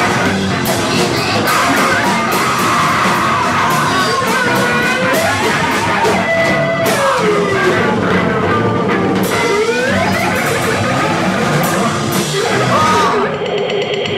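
Loud live noise music: a dense wall of distorted noise with swooping, gliding pitched tones. About 13 seconds in it thins to a steadier buzzing drone.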